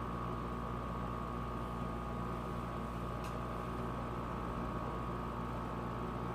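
Steady background hum of a room, with a constant high-pitched tone over it and a single faint click about three seconds in.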